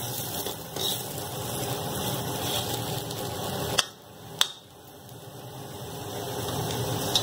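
A low steady hum, with two sharp metal taps about half a second apart near the middle: a slotted steel spoon knocking against an iron kadhai while cooked stuffed bitter gourds are turned.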